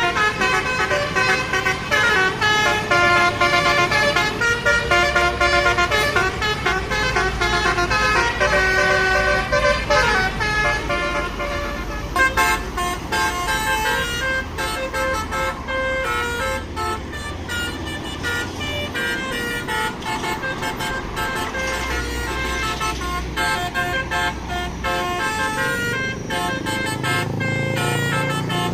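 A bus's basuri multi-tone telolet horn plays a quick tune of short notes over traffic noise. It is loudest for about the first twelve seconds, then the notes come fainter and more sparsely.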